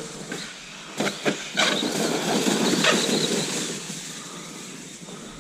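Arrma Granite BLX radio-controlled truck driving across the yard: a few sharp knocks about a second in, then about two seconds of rushing tyre and drivetrain noise that fades away.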